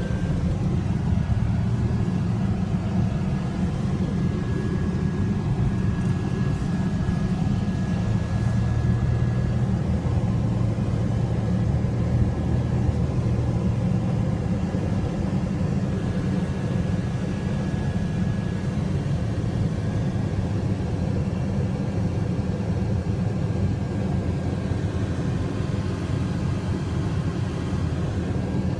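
Steady low rumble of a car's engine and tyres on the road, heard from inside the moving car's cabin. A faint thin high whine runs along with it for the first twenty seconds or so.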